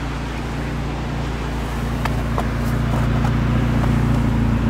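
Low steady hum of the Chevrolet Lanos 1.5-litre four-cylinder engine idling, heard from inside the cabin. It grows slightly louder after about two seconds, with a few faint clicks.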